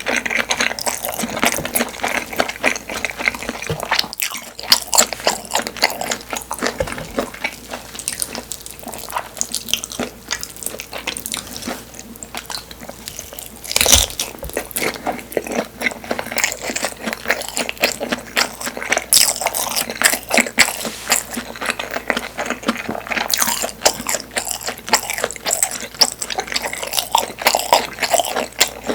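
Close-miked chewing and wet mouth sounds of eating Korean sundae (blood sausage), a dense run of rapid small clicks, with one louder sharp knock about halfway through.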